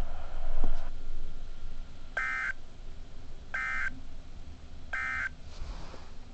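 Three short bursts of warbling digital data tones from a Midland HH54 NOAA weather radio, about a second and a half apart: the SAME end-of-message code that closes a weather radio test broadcast.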